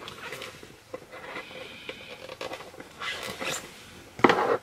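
Items and packaging being handled on a desk: light rustling, taps and scrapes, with a short, louder rustle about four seconds in.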